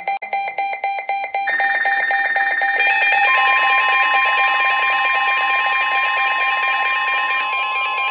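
Emergency alert tones ahead of a severe thunderstorm warning. A fast pulsing beep is joined about one and a half seconds in by a sustained higher tone, then about three seconds in by another steady tone, building into a layered, continuous alarm.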